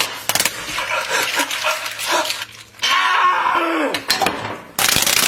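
A dog whining in a rising-and-falling cry about three seconds in, with clicks and clatter around it. Near the end, a loud steady hiss cuts in suddenly.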